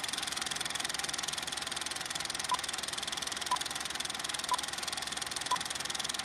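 Film projector sound effect: a fast, even mechanical clatter of the film running through. Four short beeps of one steady pitch sound a second apart, starting about two and a half seconds in: the countdown-leader beeps.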